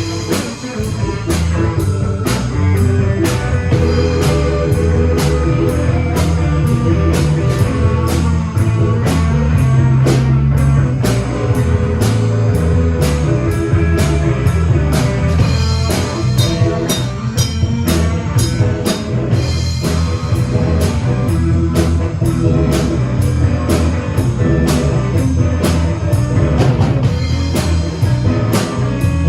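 Rock band playing with electric guitar and drum kit over a steady beat, at sound check.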